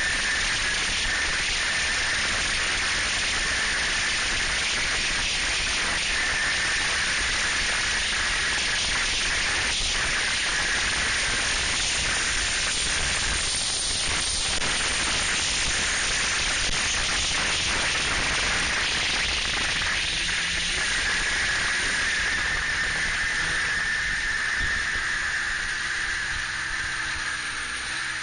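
Snowmobile running at speed, heard as a steady rushing hiss with a steady high whine. Near the end it eases off and grows quieter as the machine slows.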